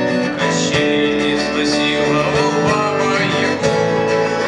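Acoustic guitar music, strummed and plucked, playing steadily between sung lines of a song.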